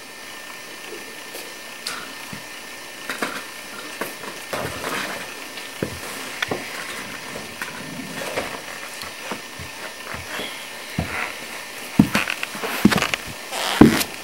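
Scattered clicks and knocks over a steady hiss, with several louder thumps close together near the end.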